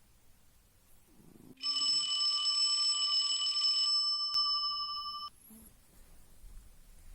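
A steady, alarm-like ringing tone that starts abruptly, holds for about three and a half seconds and cuts off suddenly, with some of its higher tones dropping out partway through.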